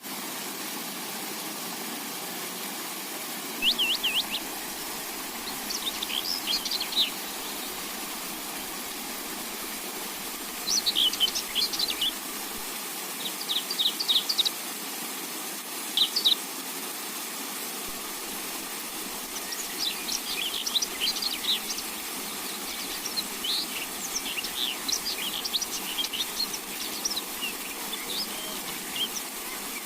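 A songbird singing in short bursts of quick, high chirps and trills separated by pauses, growing denser near the end, over a steady hiss.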